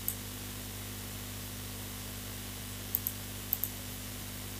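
Steady low hiss with a faint electrical hum, broken by a few short, light computer mouse clicks: one just after the start, then four in quick succession about three to three and a half seconds in.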